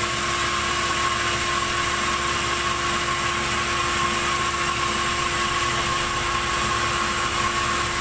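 A sawmill's log saw and its drive motor running steadily: an unbroken whine with a constant hum beneath it, over a steady hiss.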